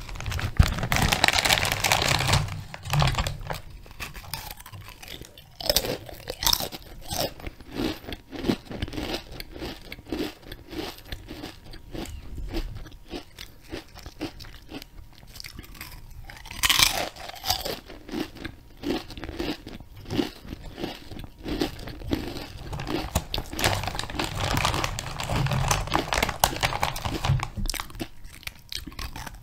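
A person crunching and chewing food right at the microphone: a dense run of short, crisp crunches and mouth sounds, with louder clusters about a second in, midway and near the end.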